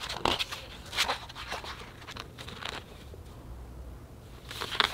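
Pages of a large hardcover photobook being turned by hand: short paper swishes and rustles, several in the first three seconds and another cluster near the end.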